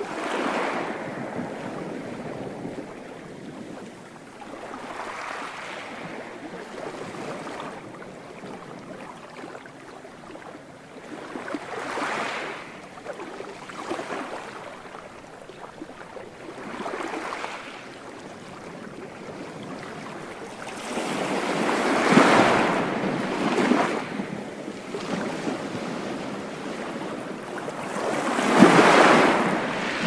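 Gentle sea waves breaking and washing up the shore, each surge rising and falling away every few seconds, with two larger waves in the last third.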